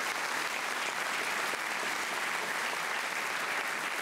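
A large seated audience applauding steadily in a hall, a dense even clatter of many hands clapping.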